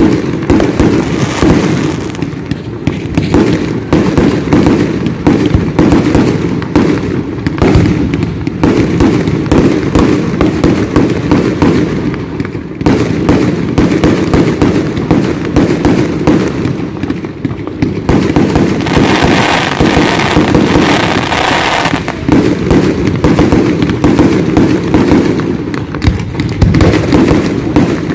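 Aerial fireworks going off in rapid succession: a near-continuous barrage of bangs and crackles, with a denser stretch of crackling a little past the middle.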